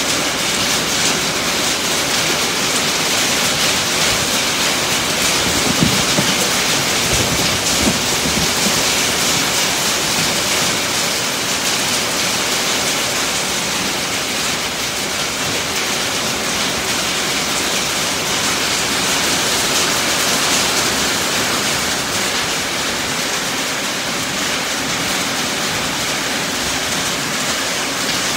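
Heavy rain hitting a tin roof: a dense, steady hiss. Two brief low thumps come about six and eight seconds in.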